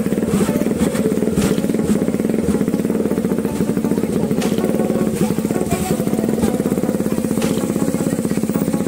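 Single-cylinder engine of a Bajaj Pulsar RS 200 motorcycle running steadily at low speed, with a few short knocks over it.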